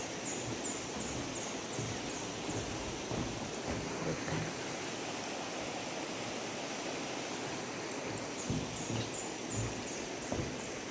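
Steady rushing of a shallow river below, with soft footsteps on the bridge deck. Short runs of quick, high, descending bird chirps come near the start and again near the end.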